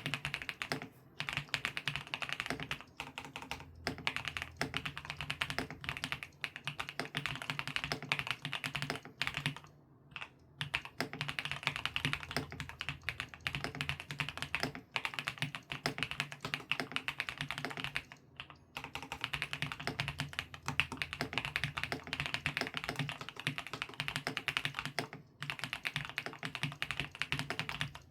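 Mechanical keyboard typing on QSENN Bsun Brown Sugar Latte switches in a Monstargear X504 Pro keyboard: keys struck in fast, continuous runs broken by several short pauses.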